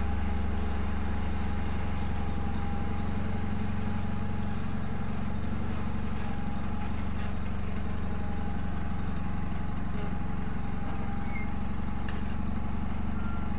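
John Deere 318 garden tractor's Onan two-cylinder engine running steadily while it warms up after a cold start. It has a deep, even rumble that eases slightly about three seconds in.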